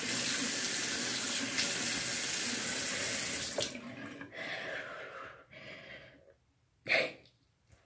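Bathroom sink faucet running as water is splashed on the face to rinse off a dried face mask. The running water stops abruptly about three and a half seconds in. Quieter, patchy wet sounds follow, then one brief, sharp noise near the end.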